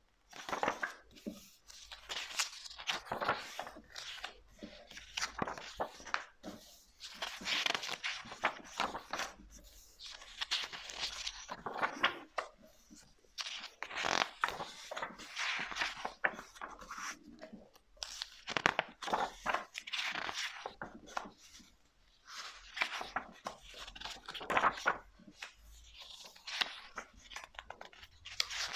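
Pages of a softcover photography book being turned by hand, one after another: a papery rustle and swish as each sheet is lifted and laid over, in bursts every second or two.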